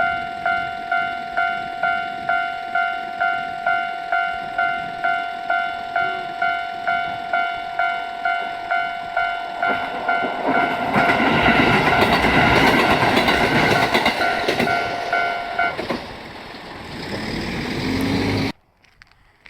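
Japanese level-crossing warning bell dinging steadily, about one and a half strokes a second, as a diesel train on JR Hokkaido's Rumoi Main Line comes through. The train's rumble and rail clatter swell about halfway in. The bell stops a few seconds before the end while the train noise carries on, and everything cuts off suddenly near the end.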